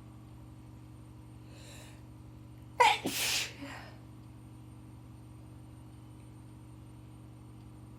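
A woman with a heavy cold sneezing once, hard: a faint breath about a second and a half in, then a sudden, loud sneeze a little under three seconds in.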